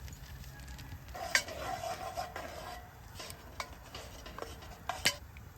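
A utensil stirring flour into melted butter in a 10-quart Lodge cast iron Dutch oven to make a roux, scraping and clinking against the pot, with two sharp clinks about a second in and near the end.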